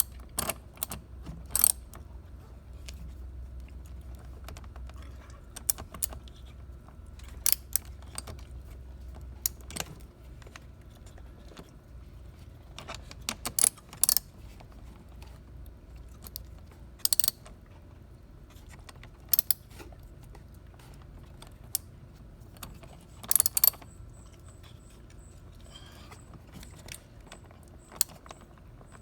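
Metal clicks and clinks of a wrench and socket working the nut on a car battery's negative terminal clamp, in short clusters every few seconds.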